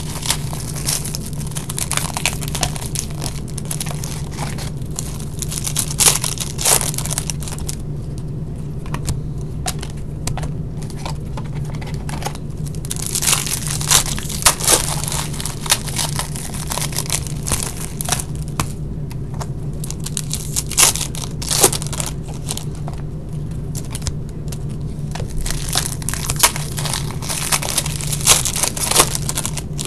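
Trading-card pack wrappers and box packaging being torn open and crinkled by hand, in three spells of crackling with sharp snaps, over a steady low hum.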